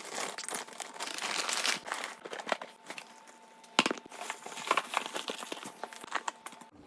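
Plastic grocery bags rustling and crinkling as items are handled and pulled out, with a sharp knock about four seconds in.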